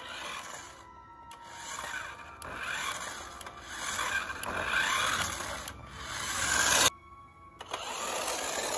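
Remote-control toy Mercedes-Benz AAV running, its small electric drive whirring in surges that build and fade. It stops abruptly about seven seconds in and starts again a moment later.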